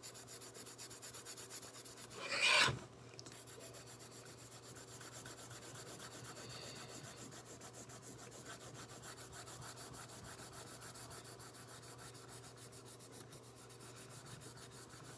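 Rapid back-and-forth colouring strokes on paper, a fine continuous scratching as an area of grass is coloured in quickly. About two and a half seconds in comes one much louder, brief scrape.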